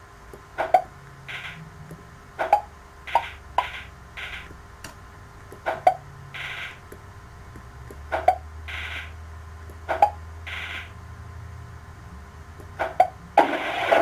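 Computer game sound effects from a laptop: a string of short clicks and blips, about a dozen, several followed by a brief hiss, over a low steady hum. A louder rushing noise sets in just before the end.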